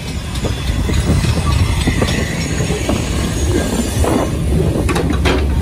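LMS Jubilee class three-cylinder 4-6-0 steam locomotive 45596 Bahamas drawing slowly past along a station platform: a steady low rumble of wheels and motion that grows louder about a second in as the cab comes level, with a few sharp knocks near the end.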